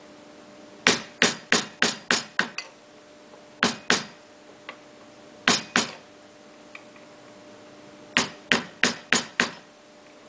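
Hammer blows: a quick run of about seven strikes, two pairs, then a final run of five, knocking at the wheelbarrow's old handle to get it off.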